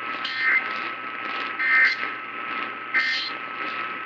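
Emergency Alert System end-of-message data signal: three short, harsh digital warbling bursts about a second and a quarter apart, heard over AM radio static with a steady high whine underneath.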